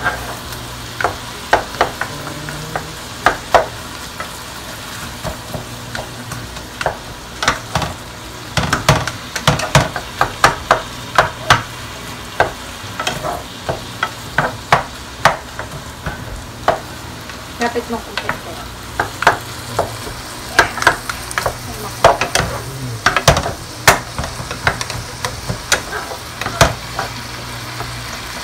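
Ground beef browning in a large nonstick pot, sizzling, while a wooden spatula and a second utensil stir and break it up with frequent irregular clicks and scrapes against the pot. A faint steady low hum runs underneath.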